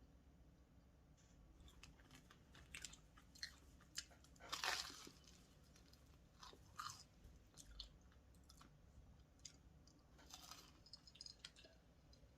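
Quiet chewing and crunching of food, with scattered small crackles and two louder crunchy bites, about four and a half seconds in and again near ten seconds.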